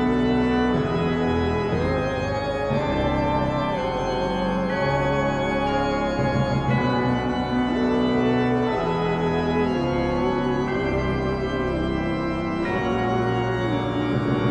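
Background music: an organ-like keyboard holding slow, sustained chords under a melody line of long notes with vibrato.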